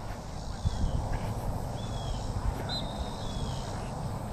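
Steady low rumble and occasional thuds of a body-worn camera on a player moving about the pitch, with a few short, high chirps or squeaks scattered through.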